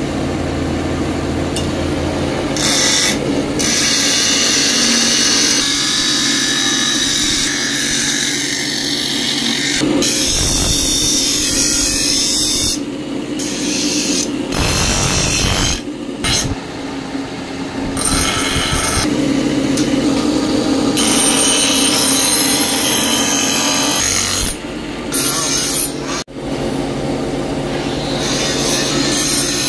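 Steel machete blade ground against a spinning shaft-mounted grinding wheel: a harsh grinding hiss over a steady low hum from the machine. It comes in several short stretches that cut off and restart abruptly.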